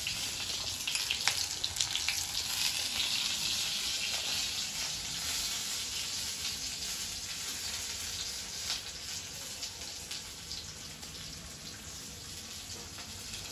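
Onion and chillies sizzling in hot oil in an iron kadhai: a steady frying hiss that slowly grows fainter, with a few faint clicks.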